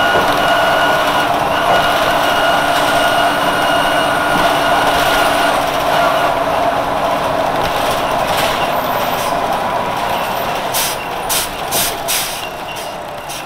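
NovaBus RTS-06 transit bus with a Detroit Diesel Series 50 engine, heard from on board, running with a steady whine that fades out about halfway through. Near the end come several short hisses of air from its air system.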